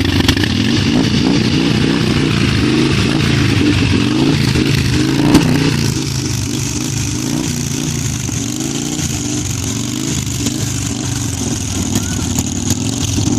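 Harley-Davidson V-twin motorcycle engines running at low revs, the pitch wavering up and down, with a sharp click about five seconds in.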